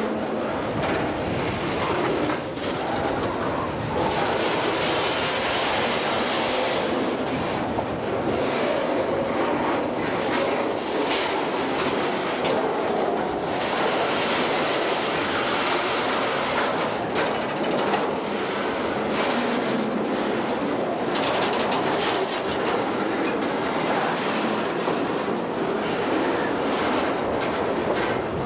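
Freight train of piggyback flatcars carrying highway trailers rolling past close by: a steady rumble of steel wheels on rail, with irregular clicks as the wheels cross rail joints.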